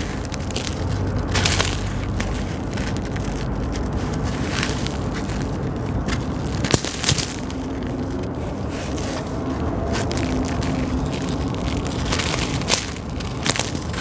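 Dry, gritty sand-cement chunks being crumbled and crushed by hand, giving a steady grainy crunching dotted with small crackles, with one sharper snap about halfway through.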